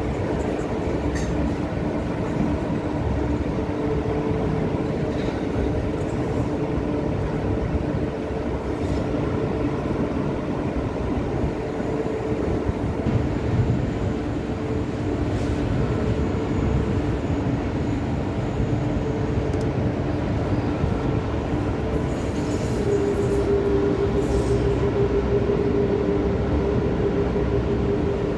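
Passenger train running along the track, heard from an open coach doorway: a steady rumble and rattle of wheels on rail, with a steady hum that grows stronger near the end.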